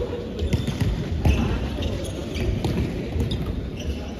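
Indoor court play in a volleyball match: several sharp ball hits and short squeaks of shoes on the gym floor, echoing in a large hall.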